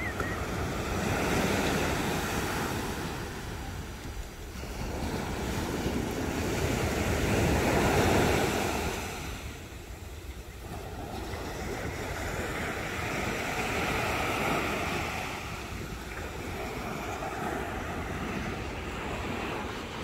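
Small sea waves breaking and washing up a sandy beach, the surf swelling and easing about every six seconds, with wind rumbling on the microphone.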